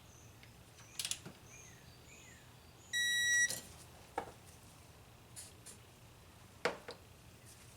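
Digital torque wrench beeping once, a steady high tone lasting about half a second, the signal that a cylinder head bolt has reached the set 22 ft-lb. A few sharp clicks come before and after it.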